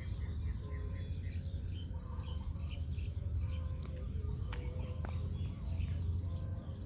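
Birds chirping and calling, scattered short chirps and whistles over a steady low rumble, with two sharp clicks a little after halfway.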